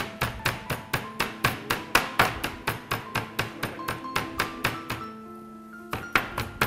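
Wooden rolling pin pounding chicken breast flat through plastic wrap on a plastic cutting board, about four to five strikes a second, with a brief pause near the end before the pounding resumes. Background music plays underneath.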